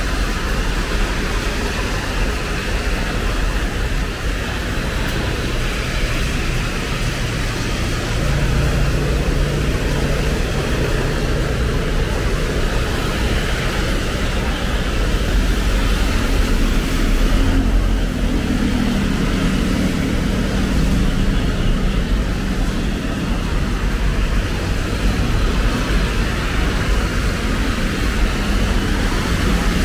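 Steady traffic on a rain-wet road: a constant hiss of tyres on wet asphalt under a low rumble of engines. Passing vehicles' engine drone swells about eight seconds in and again around seventeen to twenty seconds in.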